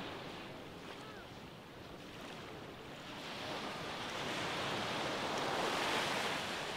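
Gentle surf washing onto a sandy beach, a low wave building to a break and rolling up the sand about four to six seconds in, then easing off.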